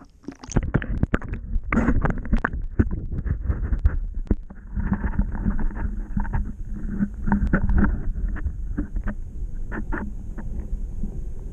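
Water splashing and sloshing around a GoPro in its waterproof housing as it goes under the river surface, with many sharp clicks and knocks for the first few seconds. Then a muffled underwater rumble with scattered clicks.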